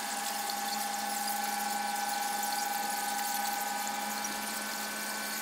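Steady machinery whine: an unchanging hum made of several steady tones, the strongest a high-pitched one, with no deep rumble underneath.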